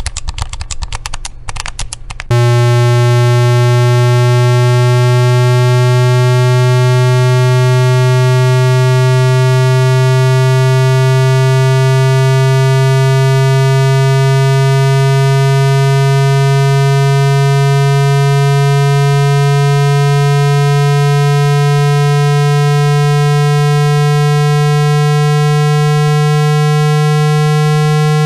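Synthetic water-eject speaker-cleaning tone: one loud low tone with overtones, rising slowly and steadily in pitch. It begins about two seconds in, after a rapid crackle of clicks.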